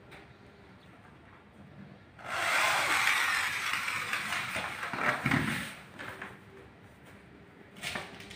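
Orange corded electric drill running under load into a white PVC door-frame profile for about three and a half seconds, starting about two seconds in, followed by a short click near the end.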